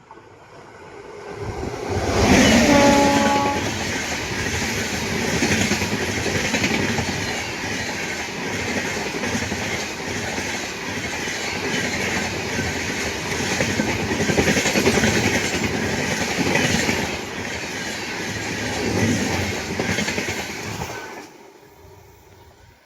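A train passing at speed, its horn sounding briefly about two seconds in, followed by the long, steady rattle of the wheels and coaches running over the track. The sound stops abruptly near the end.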